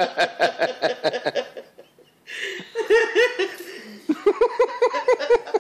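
Hearty laughter in quick repeated ha-ha pulses, breaking off briefly just before two seconds in and then starting up again.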